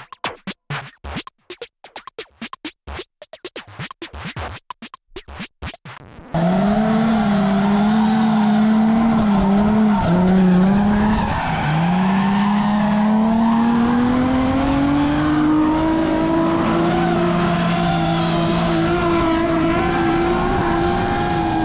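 For about six seconds there is a rapid, irregular series of clicks. Then a drift car's engine starts suddenly and loud, held at high revs with tyres squealing in a slide, its pitch dipping and then climbing slowly.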